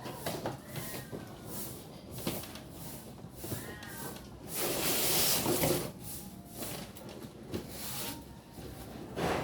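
Packaging being handled while a television is unboxed: rustling and scraping with a few sharp knocks, and a longer, louder rustle about halfway through.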